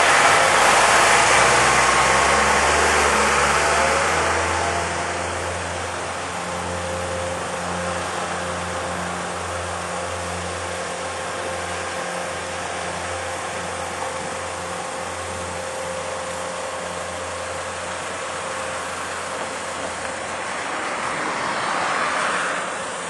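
Vehicle engine pulling away close by, loud for the first few seconds, then a steady engine drone that swells again near the end. The source is the Puffing Billy replica road train, built on an aircraft tow tractor, setting off.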